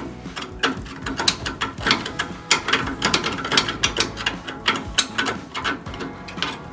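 Small hand tool scraping and picking at packed dirt and rust on the torsion bar mount to free the retaining clip: a quick, irregular run of sharp scratchy clicks and scrapes.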